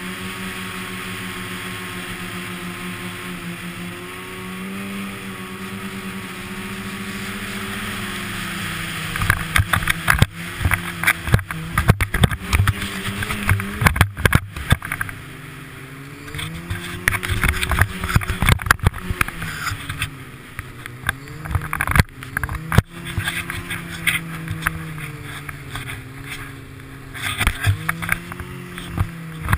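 Snowmobile engine running under the rider, steady at first, then rising and falling in pitch as the throttle changes. From about nine seconds in, loud irregular knocking and buffeting runs over it.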